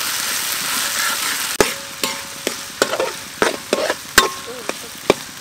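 Shallots and chili paste sizzling in hot oil in a steel wok, with a steady hiss. About a second and a half in the hiss drops, and a metal spatula scrapes and clinks against the wok about a dozen times, some strikes ringing briefly.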